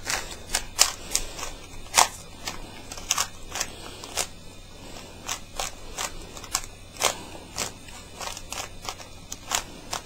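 Plastic Rubik's cube being scrambled by hand, its layers turned quickly: an irregular run of sharp plastic clicks and clacks, two or three a second.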